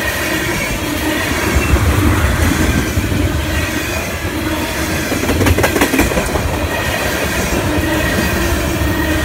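Freight train tank cars rolling past close by: a steady rumble and rattle of steel wheels on the rails. There is a cluster of sharp clacks about five and a half seconds in.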